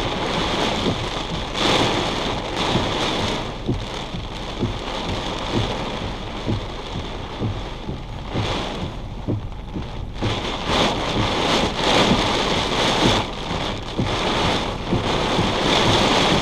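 Heavy rain coming down in sheets, drumming on the car's roof and glass, heard from inside the cabin. It swells and eases in gusty surges.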